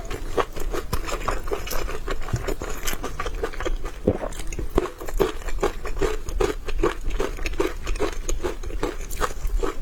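Close-miked chewing of a thin-skinned steamed dumpling: wet, soft mouth sounds with small clicks in a steady rhythm of about two to three chews a second.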